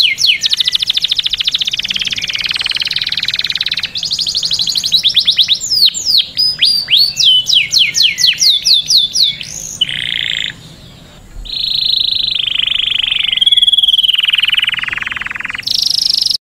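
Canary singing: fast trills and runs of quick down-slurred whistled notes, then after a short pause a long, even rolling trill.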